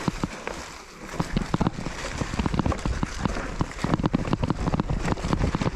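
Mountain bike rattling down a rough trail, with a dense run of sharp knocks and clatters and wind on the microphone.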